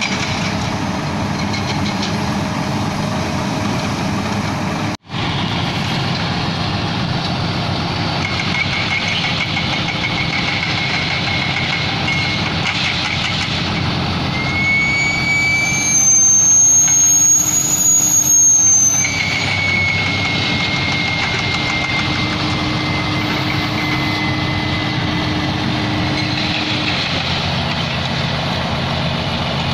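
Heavy truck's diesel engine running steadily under load, with a high whine over it from the self-loader's hydraulics as the deck and outrigger legs are worked. For a few seconds in the middle the engine is revved harder and the whine rises in pitch and gets louder. The sound drops out for an instant about five seconds in.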